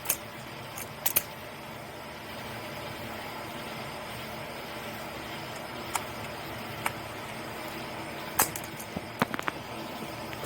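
Scattered sharp metallic clicks and taps of a hand tool working the screw on a car battery terminal connector, a few at a time with pauses between, over steady background noise.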